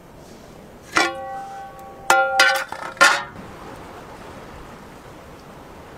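Five sharp ringing notes: one about a second in, then a quick cluster of four a second later. Each is a clear pitched ring that dies away within a fraction of a second, over a steady hiss of wind and surf.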